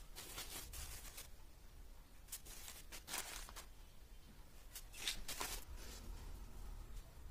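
Faint rustling and scratching of rangoli powder being pinched between fingers and sprinkled onto the floor, in several short bursts.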